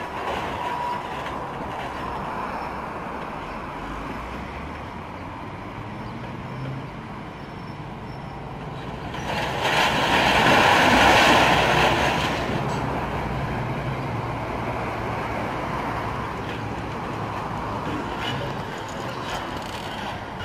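Articulated dump truck's diesel engine running while its body tips and a load of demolition timber and rubble slides out. The load comes out with a loud crashing clatter lasting about three seconds, about halfway through. A reversing beep is heard at the very start.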